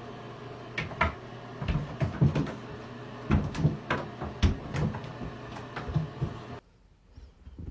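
A run of irregular knocks and thumps, about a dozen in five seconds, over a low steady hum; it cuts off abruptly near the end.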